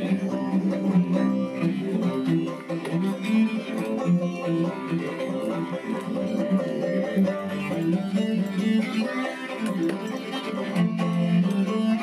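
Instrumental folk music: a banjo picking along with a cello.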